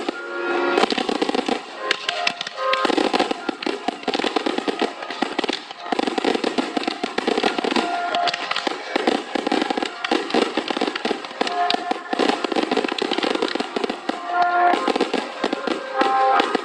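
Fireworks crackling and popping in dense, rapid succession throughout, with music playing at the same time.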